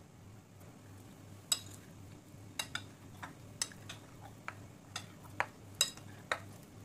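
Steel spoon clinking against a ceramic plate as soaked dahi vadas are turned in thinned curd. It makes about ten light, irregularly spaced clicks, starting about a second and a half in.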